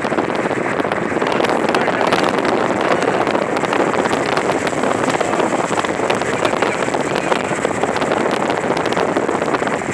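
Steady road and engine noise of a moving coach bus heard from inside the cabin, with many small ticks and rattles throughout.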